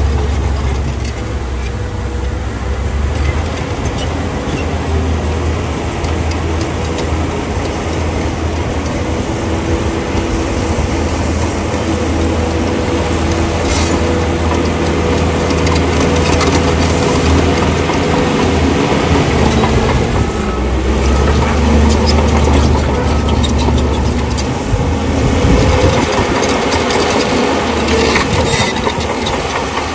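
Heavy diesel engine of a crawler bulldozer running steadily under load, with the grinding and rattle of the machine at work and a few sharp clanks.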